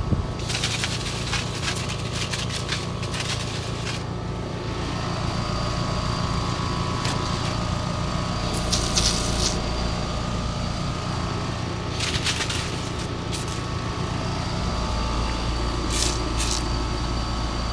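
A machine running steadily with a low hum, interrupted now and then by short bursts of hissing. The low drone grows heavier about three quarters of the way through.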